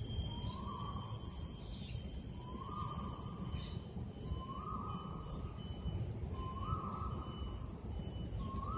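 A bird repeating a short whistled note about every two seconds, five times, each note rising slightly and then holding. Fainter high chirps come and go over a steady low rumble.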